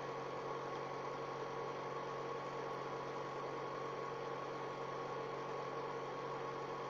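Steady background hum with hiss, a few constant tones held level and unchanging throughout.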